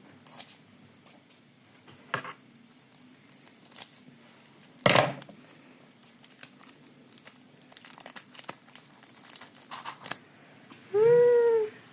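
A small plastic wrapper crinkling and being torn open in the hands, with many small crackles and one loud sharp rip about five seconds in. Near the end comes a short wordless vocal exclamation.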